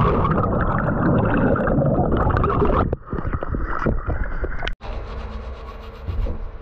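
Pool water splashing and gurgling, loud and rough, breaking off abruptly about three and about five seconds in.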